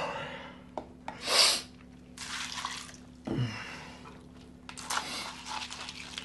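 A man yawning aloud with a falling groan, then loud breaths and sniffs, and a second groaning yawn about three seconds in. Near the end a spoon clicks and scrapes in a plastic cereal bowl.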